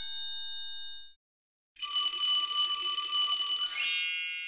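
Bell-like intro chimes: a bright chime rings out and fades within about a second, then a sustained shimmering chime swells, sweeps upward near the four-second mark and slowly rings away.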